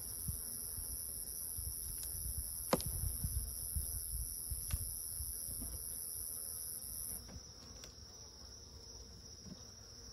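A chorus of night insects trilling steadily in two high pitches; the higher one stops about seven seconds in. A few sharp clicks sound over it, the clearest about three seconds in, with a low rumble underneath.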